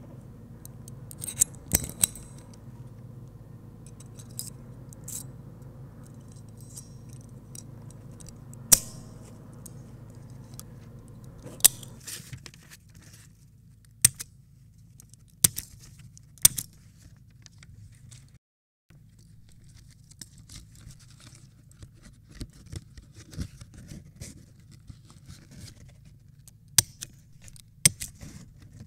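A stapler being loaded with staples: small metal scrapes and rattles, with about nine sharp snapping clicks scattered through, over a low steady hum.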